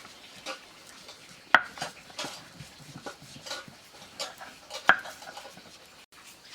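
Dishes and metal utensils clinking and knocking irregularly, with two louder clanks about one and a half seconds and five seconds in.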